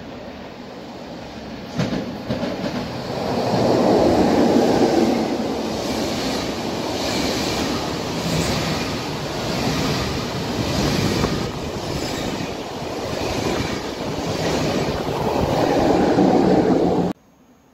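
Double-deck passenger train passing through a station at speed, its wheels clacking in a steady rhythm over the rail joints. It grows loud, swells again as the electric locomotive at the rear goes by, and cuts off suddenly near the end.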